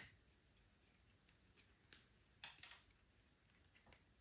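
Faint clicks and small snaps of mini mating nuc plastic frames being twisted apart by hand: a handful of separate clicks, the sharpest a little past halfway.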